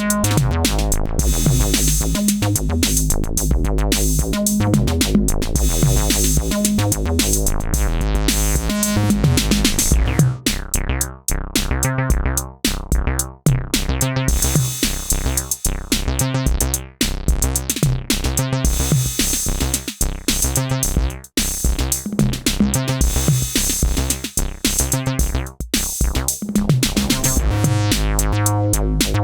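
Electronic synthesizer bass line played over a drum machine beat. About a third of the way in, the bass pattern turns choppier, with short gaps between notes.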